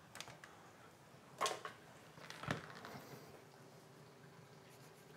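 Quiet handling of leather pieces and a pencil on a cutting mat: a short tap about a second and a half in and a knock about a second later, then only a faint steady hum.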